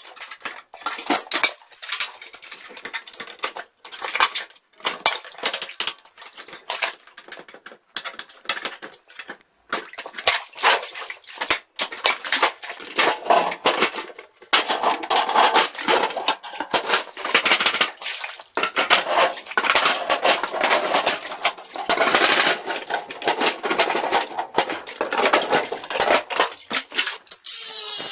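Metal objects being handled, with repeated irregular clanking and clinking throughout.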